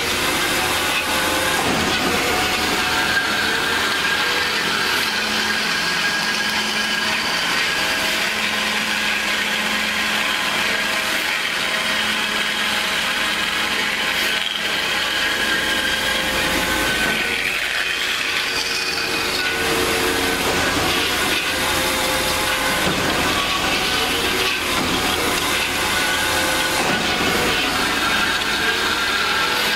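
DoAll C4100NC horizontal band saw running, its blade cutting through metal bar stock: a steady hiss under several whining tones, with a short rising squeal about halfway through.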